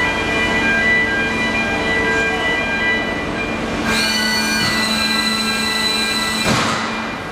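Automated pallet-handling machinery of a precast concrete production line running with a steady hum. About four seconds in, a high-pitched metallic whine sets in, holds for about two and a half seconds, then falls away in a downward sweep.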